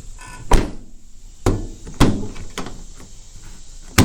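Chevy Impala car door latch and door being worked: a string of five sharp clunks and thunks about half a second to a second apart as the newly replaced door handle and latch are tested.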